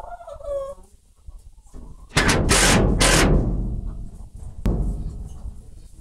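Hens in a coop: a short wavering call at the start, then a loud noisy burst lasting about a second, and a single sharp knock later on.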